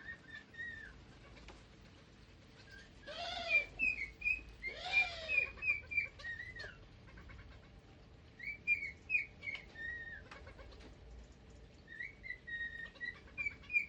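Small pet birds in an aviary chirping and whistling in short repeated notes, with two louder, harsher calls about three and five seconds in.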